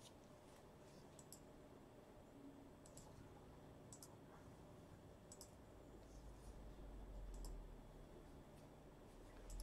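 Near silence with faint, sharp, irregular clicks, about one a second, and a faint low rumble that swells about seven seconds in.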